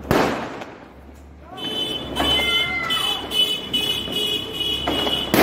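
A firecracker bang at the start, then about three seconds of a steady high-pitched electronic tone with shifting chirps over it, and another sharp crack near the end.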